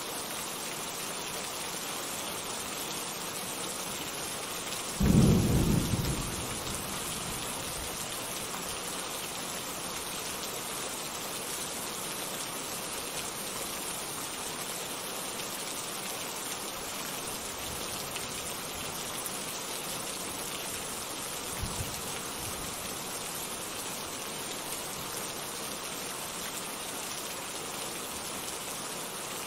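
Steady rain with rolling thunder: a loud low thunderclap about five seconds in that dies away over a second or two, and a fainter rumble near the twenty-second mark.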